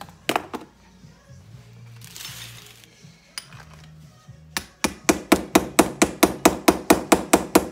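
A hammer striking metal in a fast, even run of ringing taps, about six a second, starting a few seconds in. The run follows two single knocks near the start. It is a half-inch steel bolt being hammered into the end of a motorcycle grab-rail tube.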